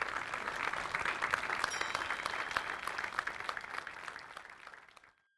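Audience applauding, a dense patter of many hands clapping that fades away and cuts off near the end.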